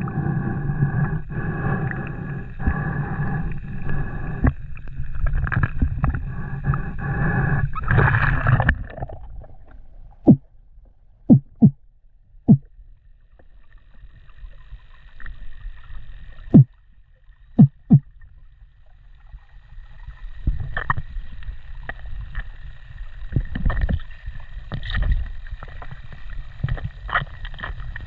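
Underwater noise picked up by a submerged camera: a low rumble with faint steady tones, broken in the middle by a quiet stretch holding about seven sharp clicks, then the rumble returning.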